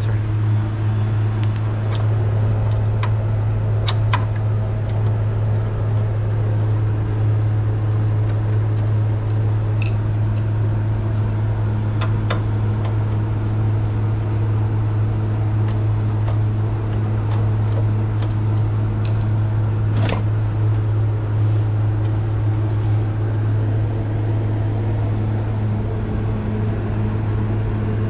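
A steady machine hum, a low drone with overtones, with scattered light clicks and clinks of a screwdriver and screws as a refrigeration unit's condenser is unfastened and handled.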